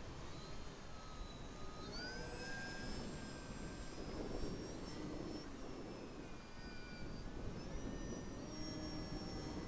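Small RC Cessna 182 model plane in flight, its electric motor and propeller whining in a thin tone whose pitch rises and falls as the throttle changes, over wind rumble on the microphone.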